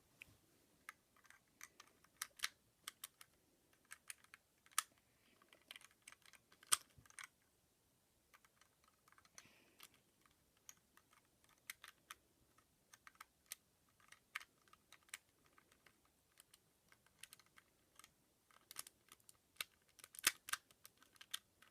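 Irregular light plastic clicks and snaps of Rubik's Cube pieces being handled, turned and pushed into place while the cube is put back together.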